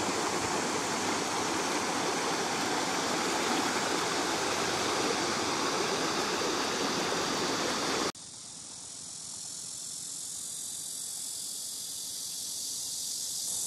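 Swollen, muddy river water rushing over a concrete weir, a steady loud rush of water. About eight seconds in it cuts off, leaving the steady high-pitched drone of cicadas.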